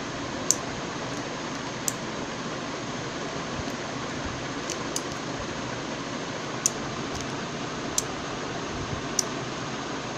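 Steady hiss with about eight small, sharp clicks at irregular intervals.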